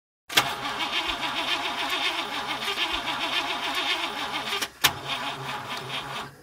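A car engine running, its pitch wavering in a quick, even pulse. It starts abruptly with a click, is broken by another sharp click about three-quarters of the way through, and stops near the end.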